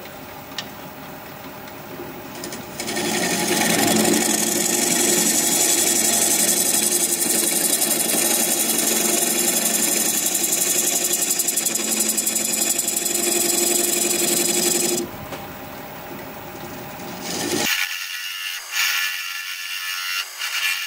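Half-inch bowl gouge cutting a recess into the base of a very hard, dense, dry red mallee burl spinning on a wood lathe at about 670 RPM. A loud, steady scraping cut runs from about three seconds in to about fifteen, then the cuts turn lighter and broken. The gouge is unsharpened, which the turner takes to be part of why the cutting goes hard.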